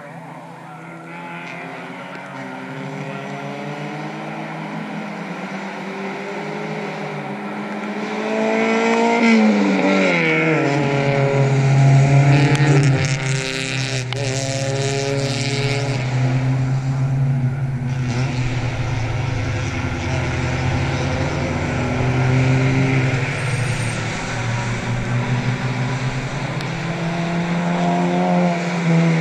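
Four-cylinder club race cars running on the circuit: the engine note builds, a car goes by about ten seconds in with a falling pitch, then a steady drone of engines carries on, building again near the end as another car approaches.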